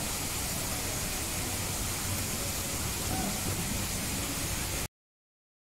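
Steady hiss of background noise with faint distant voices, cutting off abruptly to dead silence about five seconds in.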